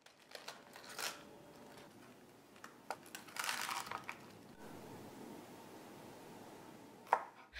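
Faint rustling and crackling of crisp red cabbage leaves being peeled and handled, with a few light clicks.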